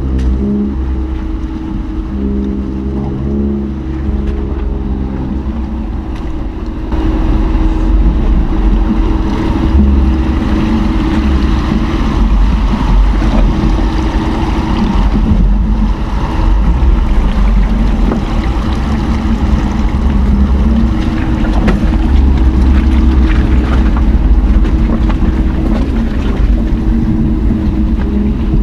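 Jeep Cherokee Trailhawk driving on a gravel trail: a steady engine hum over a deep rumble of tyre and road noise, which gets louder about seven seconds in.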